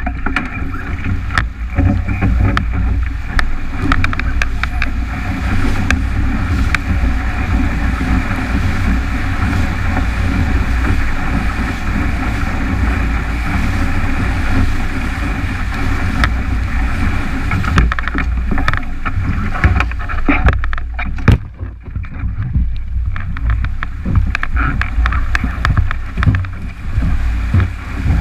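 Strong wind buffeting the camera's microphone on a 29er skiff sailing fast in heavy air, over the rush of water and spray along the hull, with scattered sharp slaps. The rushing thins out for a few seconds about 20 seconds in, then builds again.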